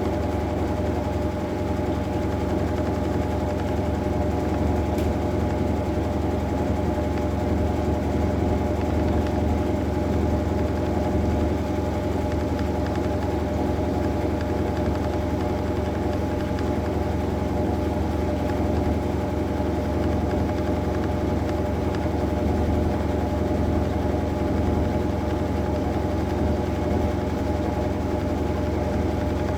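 Maytag Bravos top-load washing machine running: a steady motor hum with a steady whine over it.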